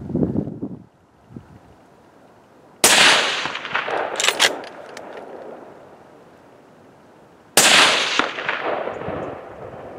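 Two rifle shots from a Blaser R93, about five seconds apart. Each is a sudden crack followed by a long fading echo. A few sharp clicks come about a second after the first shot, and a brief low rumble sounds just at the start.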